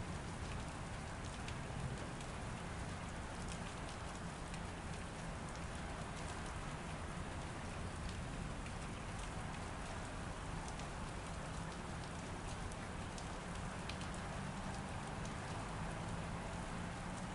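Steady rain falling, with many scattered sharp drop ticks over an even hiss.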